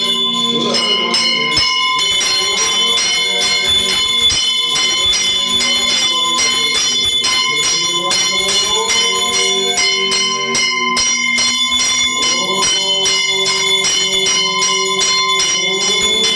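Puja bell rung rapidly and without pause during the worship, many ringing tones overlapping in a continuous clangour.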